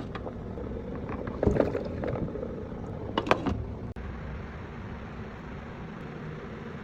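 Steady low rumbling background noise with two short clusters of knocks or clatters, about a second and a half and about three seconds in, then a sudden cut a little before four seconds after which the steady noise goes on.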